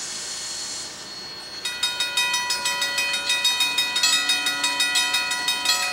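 A brief hiss, then about two seconds in a railroad bell starts ringing, a fast, steady repeated clanging with many ringing overtones, as a train approaches.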